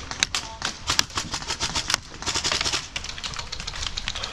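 Airsoft guns firing: sharp plastic clacks, singly and in rapid bursts, with the densest run of shots about halfway through.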